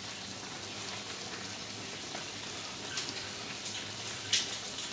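Maggi noodles boiling in a pan of water, a steady bubbling hiss, with a few light clicks and one sharper tap about four seconds in.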